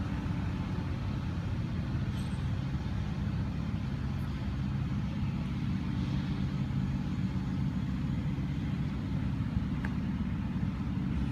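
Peterbilt 337 truck's diesel engine idling steadily.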